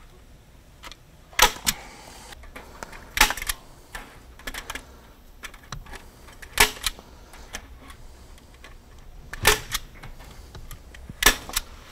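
Hand staple gun firing staples through small-mesh wire into a wooden trap frame: about a dozen sharp snaps, mostly in quick pairs every couple of seconds.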